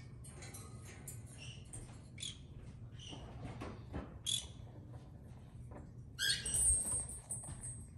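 A conure giving short, quiet chirps, then a louder call lasting under a second about six seconds in.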